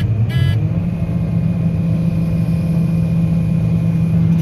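Farm machinery's engine running steadily at a constant pitch, a low, even drone.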